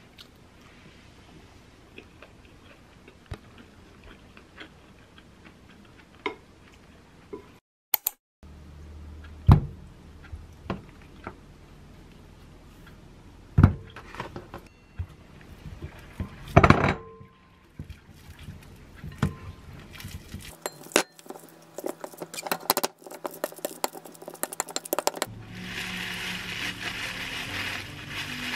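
Kitchen handling sounds: light clinks of a spoon on a ceramic bowl, then sharp knocks and clinks of bowls and utensils around a glass mixing bowl. Near the end, rolled oats poured from a bag into a bowl, a steady rustling hiss.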